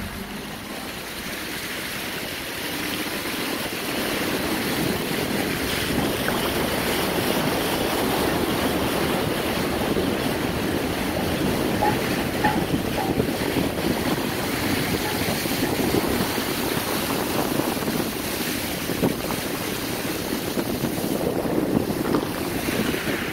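A car's tyres driving through shallow floodwater, with a steady rush and splash of water thrown up around the wheels.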